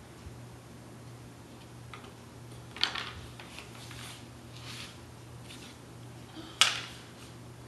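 Jigsaw puzzle pieces being handled: soft rustles and light ticks, with two sharp clacks about three and a half seconds apart, over a steady low hum.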